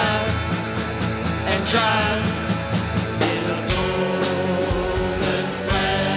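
Rock band music: drums keep a steady beat under electric guitar, bass and keyboard, and the low end of the arrangement shifts about three and a half seconds in.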